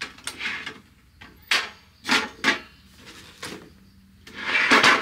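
Knocks and clatter of a portable gas grill and butane canister being handled and set on a wooden picnic table, with several separate knocks. A longer, louder scrape comes near the end.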